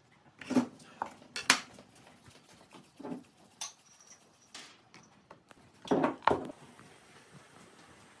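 Kitchen utensils and dishes knocking and clinking, about seven separate knocks. The loudest come about a second and a half in and just before and after six seconds.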